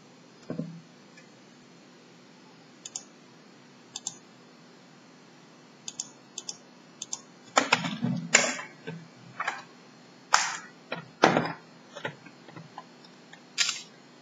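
Plastic case of a Lenovo Y450 laptop clicking and knocking as it is handled, turned over and set down on a glass tabletop: a few light, scattered clicks at first, then a run of louder knocks in the second half.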